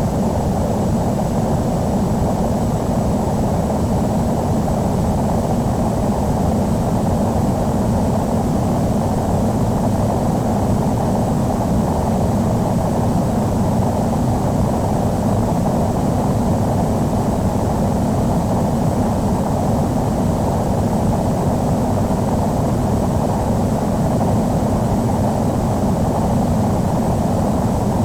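Steady cabin noise inside a Boeing 737-800 at cruise: an even, unchanging roar of airflow and jet engines, heaviest in the low range, with a faint thin high whine over it.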